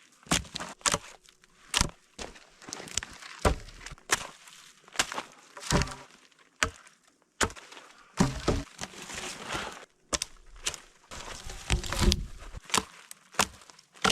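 Wood being broken and chopped: a long run of sharp cracks and knocks at irregular intervals.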